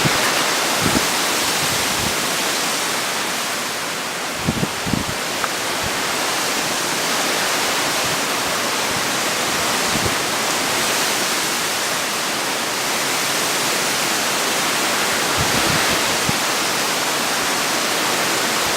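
Steady, loud rush of hurricane wind and heavy rain, with a few low thumps of gusts buffeting the microphone.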